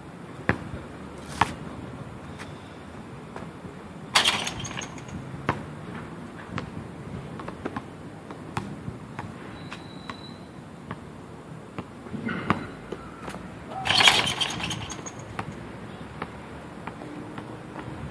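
Basketball bouncing on an outdoor concrete court, single sharp bounces spread out with gaps between them, over a steady background hum. Two louder noisy bursts, each about a second long, come about four seconds in and again around fourteen seconds in.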